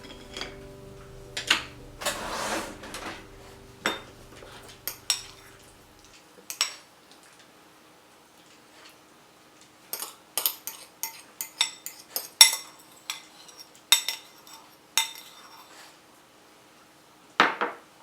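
Dishes and cutlery being handled: a series of sharp clinks and knocks of tableware set down and picked up, with a short scrape near the end.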